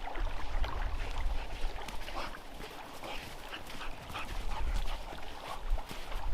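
A dog whimpering and yipping in short, scattered whines over a low rumble.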